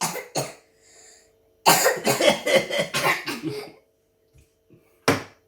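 A person coughing: two quick coughs, then a longer coughing fit of rapid coughs about two seconds in, and another cough near the end.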